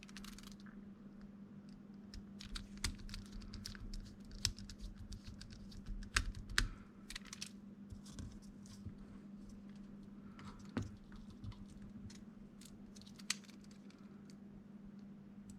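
Small screws being driven and handled in 3D-printed plastic parts: irregular light clicks and taps from the screwdriver and parts, busiest about six seconds in, over a faint steady hum.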